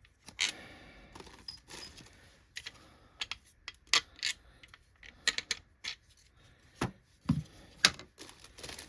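Loose metal screws and small plastic vacuum parts being handled and dropped into a plastic baggie: a string of sharp, irregular clicks and clinks, with a duller knock about three-quarters of the way through.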